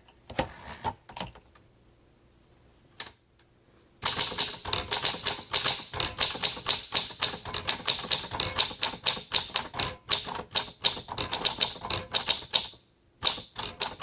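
1946 Smith Corona Silent manual typewriter being typed on. After a few separate clicks and a short pause, the keys strike in a fast, even run of about five a second, each stroke slightly damped, as on this 'Silent' model. Near the end comes a very faint ding from the carriage-return bell.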